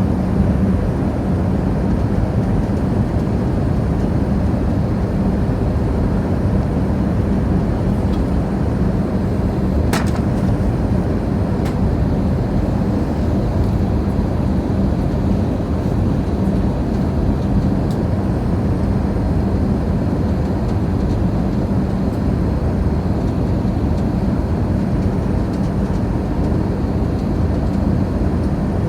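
Steady drone of an airliner in flight, heard inside the cabin, with a constant low hum; a single faint click about ten seconds in.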